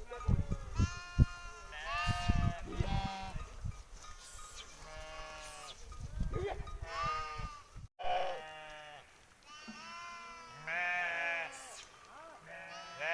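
A flock of sheep and goats bleating, many wavering calls following and overlapping one another. Low thumps and rumble come through during the first few seconds.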